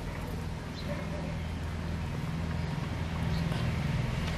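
A motor engine's low, steady drone, growing gradually louder, with a few faint light ticks over it.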